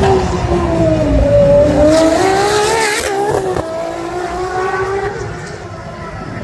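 Ferrari race car engine at high revs passing along the track: the pitch dips, then climbs hard under acceleration, breaks briefly at an upshift about three seconds in, and climbs again as the sound fades away.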